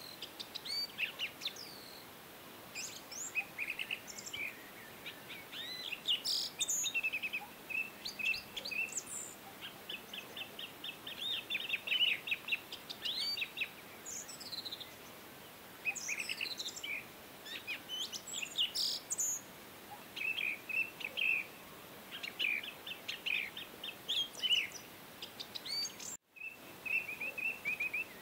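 Small birds chirping and twittering in quick, high-pitched trills, almost without pause. The sound cuts out for a moment near the end.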